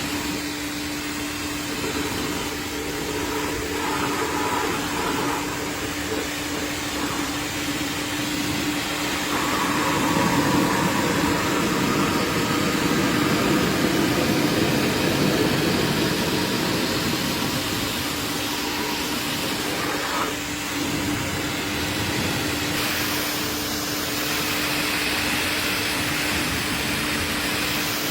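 A steady motor hum under a constant hiss, like a cleaning machine running, growing louder for several seconds in the middle.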